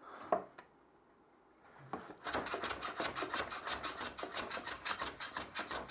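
Metal hand plane, its sole freshly waxed with candle, worked rapidly back and forth on a wooden shooting board: a short scrape just after the start, then, from about two seconds in, a fast, even rasping at about eight strokes a second.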